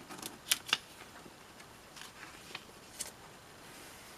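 Paper pages of a thin instruction booklet being handled and turned: a few sharp crackles and rustles. The two loudest come about half a second in, and lighter ones follow around two and three seconds.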